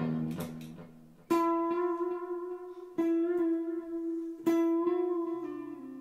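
Semi-hollow Telecaster-style electric guitar with a clean tone, playing a closing phrase. The same note is picked three times, about a second and a half apart, and each is left to ring and fade. Near the end a final note slides lower.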